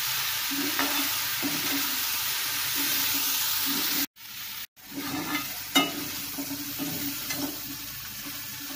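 Cubed plantain frying with a steady sizzle in a kadai while a metal ladle stirs and scrapes through it. Scattered clinks of the ladle against the pan are heard, the sharpest a little past the middle.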